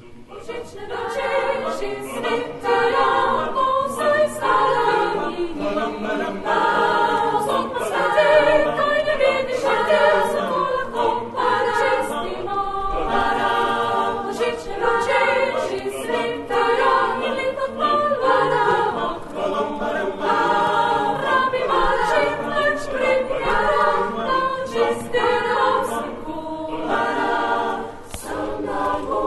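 Mixed choir singing a cappella, many voices together, in a medley of Christmas songs with environmental lyrics.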